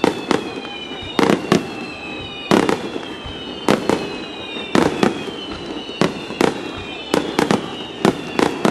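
Aerial firework shells bursting overhead: a rapid, irregular series of sharp bangs, often in quick doubles and triples, a few every second. High thin whistles slide slowly down in pitch behind the bangs.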